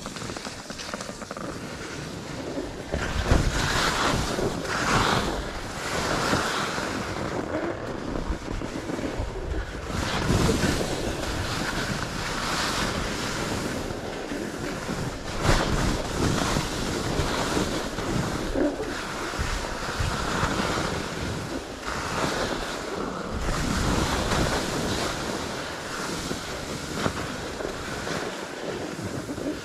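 Skis sliding and scraping over packed, chopped-up snow on a steep run, in uneven surges, with wind rushing over the camera microphone.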